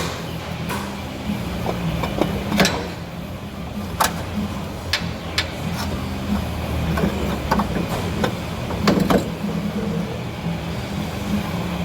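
Hand tools and metal parts knocking and clicking while a car's AC compressor is unbolted and removed: about seven separate sharp taps, scattered a second or so apart, over a steady low hum.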